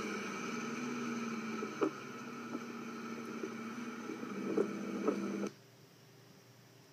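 Stage 2 tuned Subaru WRX's turbocharged flat-four engine idling steadily, with a few light clicks. The sound cuts off suddenly about five and a half seconds in, leaving only a faint hiss.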